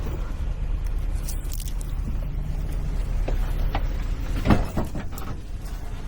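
Off-road truck's engine running low and steady while crawling a rock obstacle, with one sharp loud knock about four and a half seconds in.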